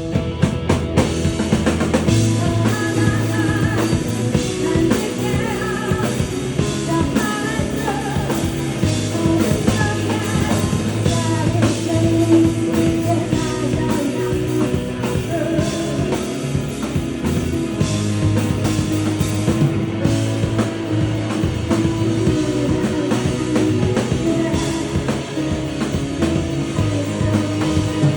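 A live rock band playing a song: drum kit and bass driving a steady beat under guitars and a wavering melody line, with singing heard over it.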